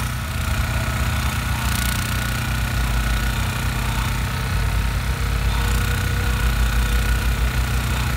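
Petrol-engined rail grinder running steadily as its abrasive wheel rough-grinds the waste metal off a fresh thermite weld on the rail. A diesel locomotive's engine drone rises under it toward the end as the locomotive approaches.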